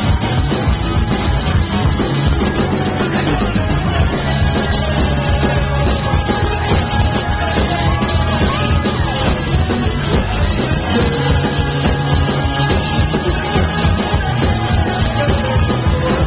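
Live rock band playing loud: a male singer over electric guitars, bass and a full drum kit, heard from the crowd through a small camcorder's built-in microphone.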